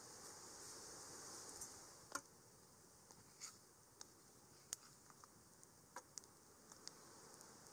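Near silence: a faint steady hiss with about ten scattered sharp clicks, the loudest about two seconds in.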